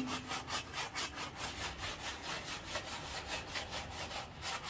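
Steel wool scrubbing back and forth over the soapy steel inside a new Old Country Wrangler offset smoker, a rhythmic scraping of about five strokes a second. The grease is being scoured off so the metal is bare for seasoning.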